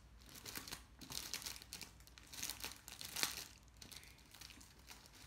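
Clear plastic wrapping crinkling and rustling in irregular bursts as a package is unwrapped by hand. The loudest crinkle comes about three seconds in.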